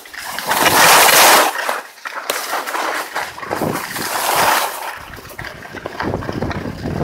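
Skis scraping and hissing over packed snow during a downhill run, mixed with wind buffeting the camera microphone. The noise comes in swells, loudest about a second in.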